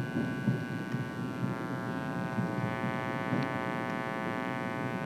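A train standing at idle, giving off a steady hum made of many even tones over a low rumble.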